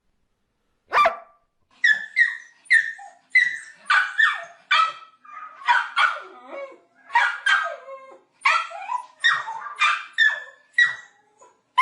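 A dog barking: one sharp bark about a second in, then a rapid, continuous run of short, high yapping barks, several a second.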